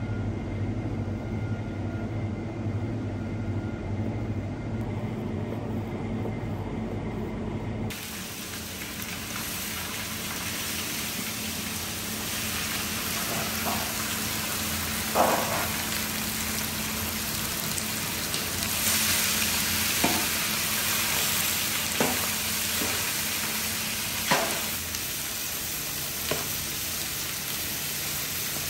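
A steady low hum at first. About eight seconds in it gives way to cubes of raw fat sizzling in a large aluminium pot, while a long metal spatula stirs them and knocks against the pot every couple of seconds.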